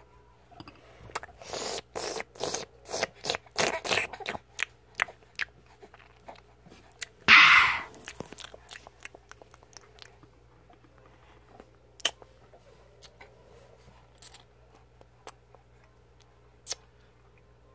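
Handling noise of small plastic toys: a quick run of clicks and crunches, one loud rustle about seven seconds in, then a few scattered faint clicks.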